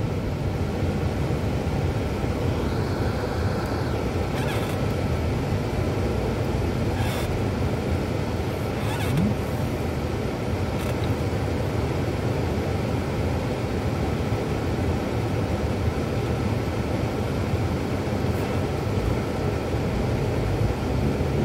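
Steady low rumble of engine and road noise inside a car's cabin, even and unbroken throughout.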